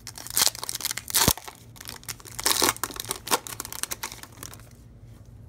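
A foil trading-card pack being torn open and its wrapper crinkled, in a run of uneven rustling bursts with one sharp click about a second in; the rustling stops shortly before the end.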